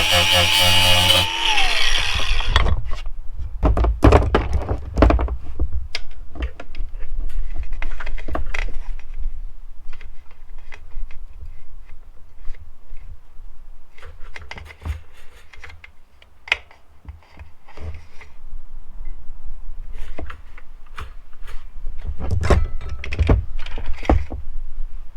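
A burst of music that stops about a second in, then irregular metallic clinks, rattles and knocks from a new O-ring motorcycle chain being handled and fitted.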